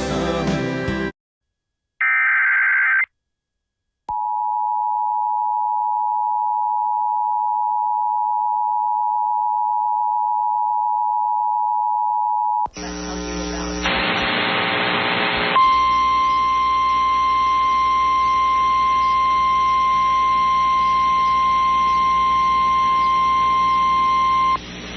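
A country song cuts off, and after a pause a one-second EAS digital header burst plays. Then the two-tone EAS attention signal sounds steadily for about eight and a half seconds. The hissy relayed NOAA Weather Radio feed comes in with its single steady warning alarm tone, held for about nine seconds.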